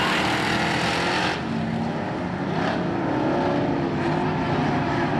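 Several dirt modified race cars' V8 engines running hard at speed around a dirt oval, their overlapping engine notes blending together. The sound is a little duller and quieter after about a second.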